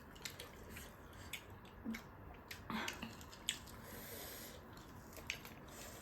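A person chewing food with faint, irregular wet clicks and smacks of the mouth.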